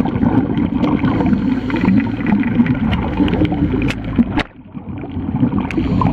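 Underwater bubbling and water noise close to the camera, with scattered small knocks. It drops away briefly about four and a half seconds in, then returns.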